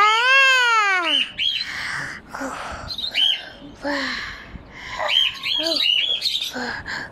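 A toddler calling out with loud, high-pitched open-mouthed vocal sounds, the loudest a long rise-and-fall cry in the first second and another near the end. Short high bird chirps come again and again throughout.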